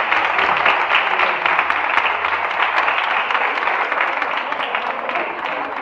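Audience of seated guests applauding: dense, steady clapping that fades a little toward the end.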